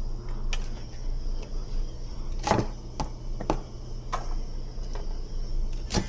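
Scattered sharp clicks and knocks of objects handled in a kitchen, about six of them, the loudest about two and a half seconds in, over a steady low hum.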